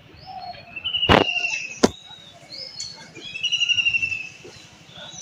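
Birds calling: several trilled calls about a second long, with shorter chirps between them, and two sharp clicks about a second and two seconds in.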